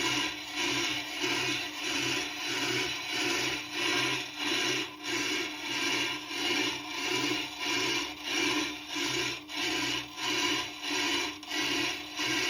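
Diamond cutter of a Tormek TT-50 truing tool scraping across a turning Tormek grinding stone, the grinding swelling and easing about twice a second as the cutter bites harder on each turn. The cutter is catching on the high part of a wheel that is not yet fully true. A steady low hum runs underneath.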